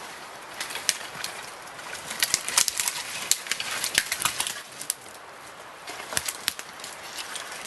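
Irregular rustling with many sharp clicks and snaps, busiest from about two to five seconds in.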